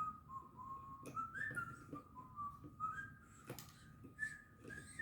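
Whistling: a string of short notes that step up and down in pitch like a tune, over a faint steady high tone, with a few clicks in between.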